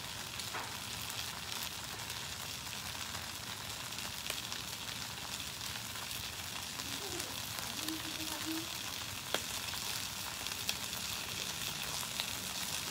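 Kuey teow goreng (stir-fried flat rice noodles) sizzling steadily in a hot non-stick wok, frying undisturbed without stirring.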